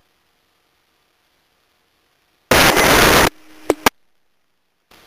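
Two-way dispatch radio squelch: after a silent gap, a loud burst of static lasting under a second, then a brief low tone ending in two sharp clicks, and faint open-channel hiss near the end.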